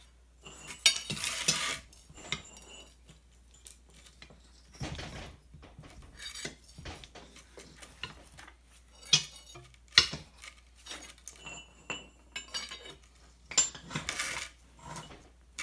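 Steel tire irons and a railroad spike clanking and scraping on concrete as they are worked under the edge of a steel gun safe to pry it up. Irregular sharp metal clinks, loudest about a second in, at around nine and ten seconds, and near the end.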